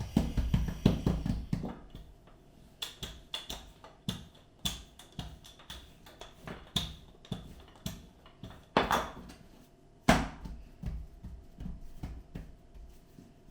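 Khachapuri dough being patted and pressed into a round by hand on a work surface: a quick run of dull thumps at the start, then scattered taps and knocks.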